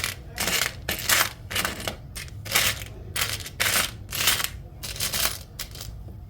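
Small metal charms being stirred and sifted by hand, a quick run of short clinking rattles about twice a second that stops near the end.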